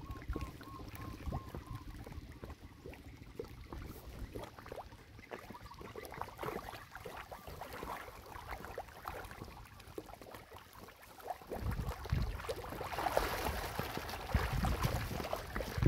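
Pangasius catfish thrashing at the water's surface, making constant irregular splashing and slapping. The splashing grows louder about twelve seconds in.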